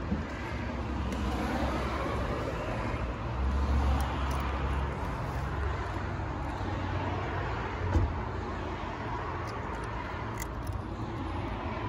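Steady street traffic noise, with a low vehicle rumble swelling about four seconds in, and a single sharp click about eight seconds in.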